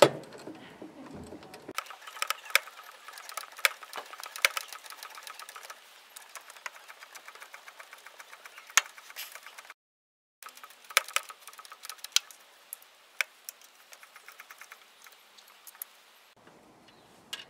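Ratchet wrench clicking in fast runs as the thermostat housing bolts are tightened down, with a few louder metallic knocks; the sound cuts out briefly about halfway through.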